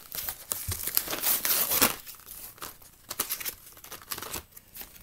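Crinkling and tearing of marker packaging handled and opened by hand, in irregular bursts that are busiest in the first two seconds.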